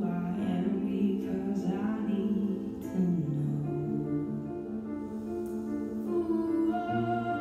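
Slow, gentle song: a woman singing over sustained instrumental chords.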